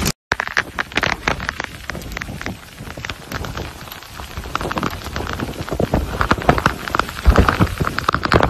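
Heavy storm rain pelting down, a dense patter of drops striking close to the microphone, growing louder in the second half after a brief silent break at the start.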